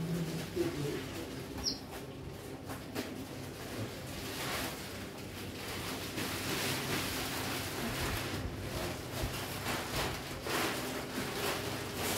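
Irregular rustling, scraping and handling noise of table tennis table packaging being opened, growing busier about four seconds in, over a faint steady low hum.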